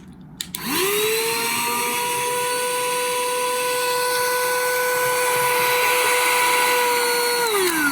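Cheap battery-powered mini handheld car vacuum cleaner switched on: its small motor spins up quickly to a steady high whine, runs for about seven seconds, then is switched off and winds down with a falling pitch.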